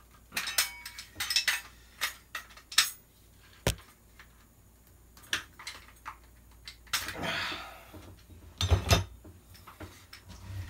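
Metal parts of a gas blowback airsoft rifle clicking and clinking as the barrel is taken off, with a few duller knocks, a short scraping rasp about seven seconds in and the loudest knocks just after it.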